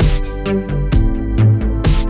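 Electronic background music with a steady beat: sharp drum hits about twice a second over a deep bass line and held chords.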